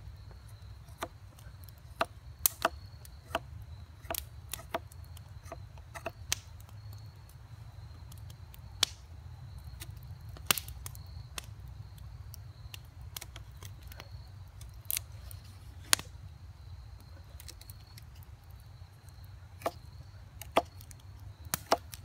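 Knife blade shaving a wooden bow drill spindle: irregular sharp cuts and clicks as the blade bites into the wood, roughly one or two a second, over a steady low rumble.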